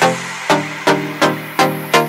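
Background music with a steady beat: pitched notes struck about three times a second.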